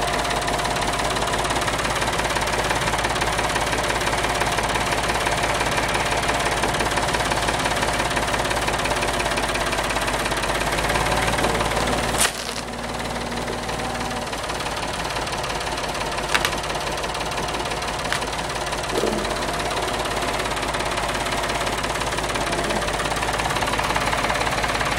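Old tractor engine running steadily while working its front loader. About halfway there is a sharp knock, after which the engine runs a little quieter, with a few lighter clicks later.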